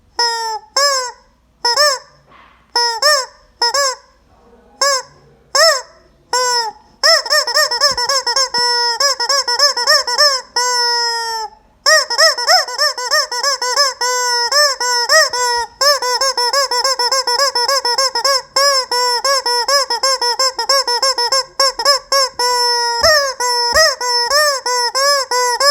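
Rubber squeaky chicken toy squeezed over and over, giving loud honking squawks: separate squawks about once a second at first, then rapid, almost unbroken squawking from about seven seconds in.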